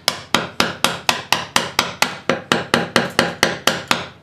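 A chisel driven by quick, evenly spaced mallet blows, about four a second, chopping waste out of a V-groove in a block of wood; the blows stop just before the end.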